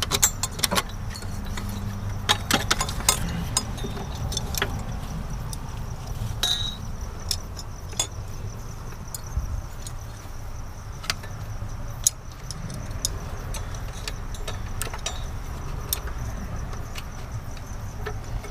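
Metal hand tools and engine parts clinking and clicking irregularly during engine disassembly, with one brief ringing clink about six and a half seconds in, over a steady low rumble.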